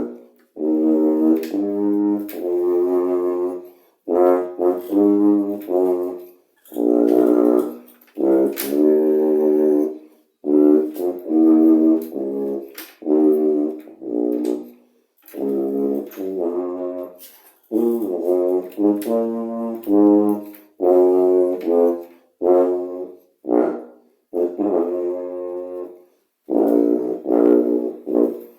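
Helicon tuba played loudly: a melody in short phrases of separate notes, with brief pauses for breath between phrases.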